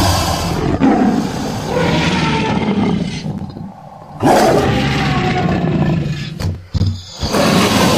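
A run of monster or animal roar sound effects: one long roar, a brief lull, then a fresh roar about four seconds in that starts loud and falls in pitch, a few short bursts, and another roar starting near the end.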